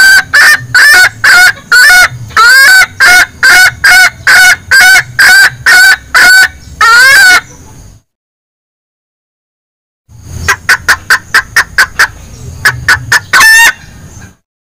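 Junglefowl hen's 'bekikuk' call, used as a lure to draw in a male: a loud series of short clucking calls, about two a second. The calls break off for about two seconds past the middle, then come back as a faster run of short clucks ending in one longer call.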